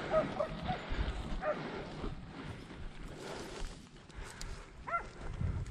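Podenco hunting dogs giving short yips and barks several times, with a brief higher yelp about five seconds in.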